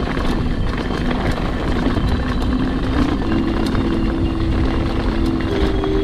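Wind buffeting an action camera's microphone as a downhill mountain bike rolls down a dirt and gravel trail. Under it are the rumble of the tyres and frequent small clicks and rattles from the bike over the rough ground.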